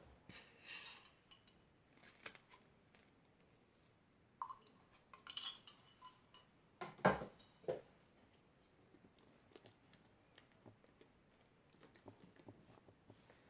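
Scattered quiet handling sounds as finished fluffy slime is worked in its container: light clicks and taps, with a louder knock about seven seconds in.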